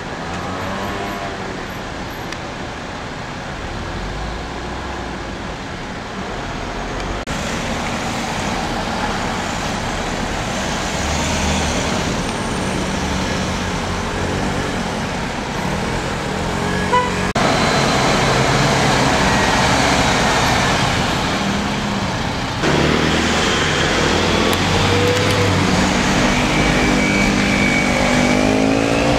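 Heavy, congested road traffic at close range: diesel engines of articulated lorries and cars idling and creeping forward, with a container lorry pulling through a tight turn near the end.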